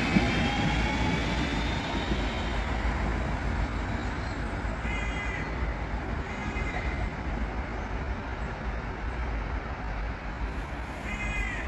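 Cologne Stadtbahn light-rail train pulling away from the platform: its electric traction motors whine up in pitch over the first two seconds or so, then the running rumble fades as the train recedes. A bird gives short calls a few times, about five seconds in, again a second later, and near the end.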